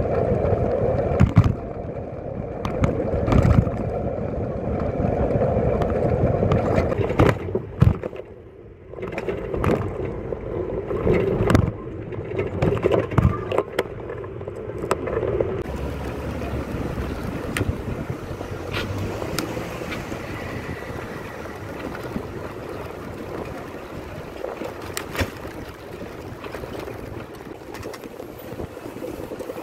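Wind rushing over the microphone and road noise while riding a bicycle, with scattered knocks and rattles from the bike.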